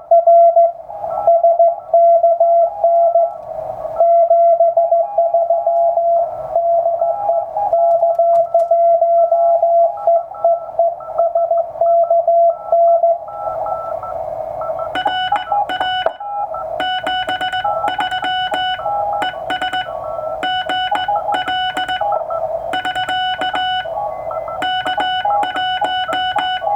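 Morse code on a single steady tone of about 700 Hz from a Ten-Tec Century/21 CW transceiver, keyed on and off in hand-sent rhythm. About halfway through, music with a piano-like keyboard takes over.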